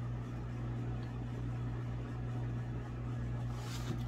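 Steady low hum with a pulsing low rumble under it and a light hiss, like a running appliance or fan in the room; a faint brief rustle comes near the end.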